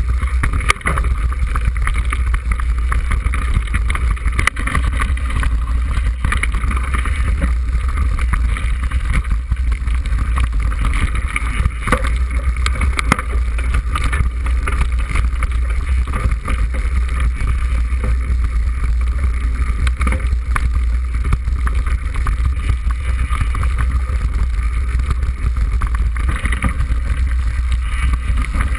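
Steady wind rumble on the microphone of a camera riding a mountain bike down a rough dirt track, with scattered knocks and rattles from the bike over the bumps.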